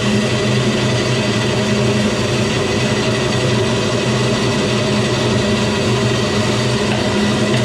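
An old bulgur mill running steadily as it cracks wheat into bulgur: an even mechanical drone with a low hum that does not change.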